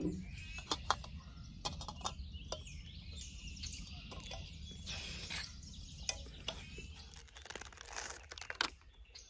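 Small birds chirping in the background, with scattered sharp clicks and knocks throughout and a steady low rumble underneath.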